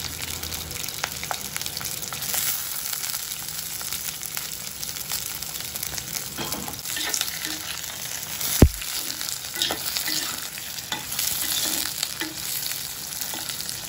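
Sliced onions and green chillies sizzling in hot oil in a clay pot, with many small crackles. A slotted stainless-steel spoon stirs them near the end, and one sharp click sounds about two-thirds of the way through.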